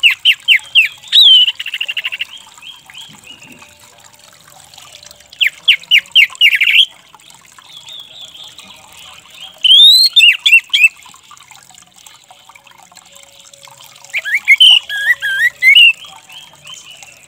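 Orange-headed thrush calling in four bursts of rapid, sharp notes, each burst lasting a second or two with a few seconds' pause between.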